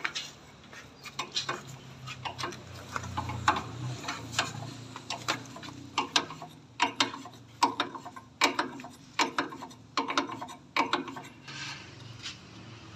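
Hand tools working on metal parts: a run of sharp clicks and knocks at irregular spacing, thickest from about six to eleven seconds in, with a low hum under the first few seconds.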